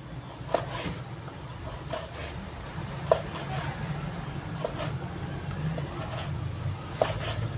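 Cleaver cutting through pork shoulder and knocking on a wooden cutting board, with sharp knocks at irregular intervals, over a steady low hum.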